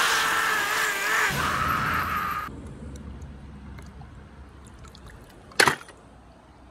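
Water spraying hard, with a held, slightly wavering pitched tone over it, cutting off after about two and a half seconds. Then comes a faint low rumble, with one sharp click about five and a half seconds in.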